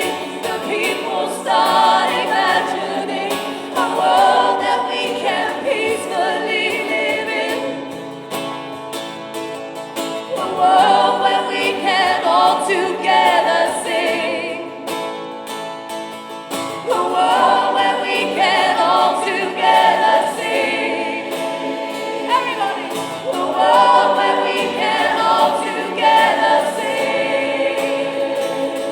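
Choir singing in phrases with short breaks between them, possibly with an instrument underneath.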